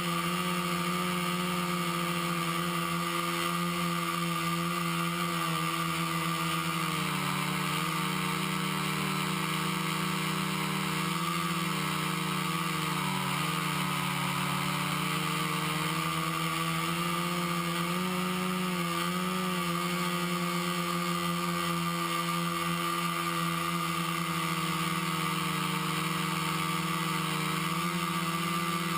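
Quadcopter's four brushless motors (Exceed RC Rocket 2215 920Kv) spinning 10-inch props in flight: a steady hum whose pitch wavers slightly up and down as the throttle changes.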